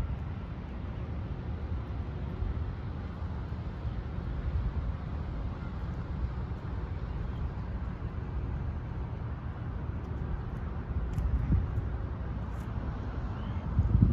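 Wind buffeting the microphone over a steady low outdoor rumble, the gusts growing stronger near the end.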